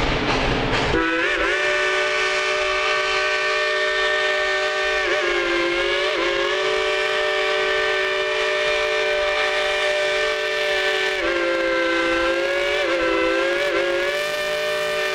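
Steam whistle of the narrow-gauge K-28 #473 locomotive blowing one long chord of several tones. It starts about a second in and holds on, the pitch sagging and wavering a few times as it sounds.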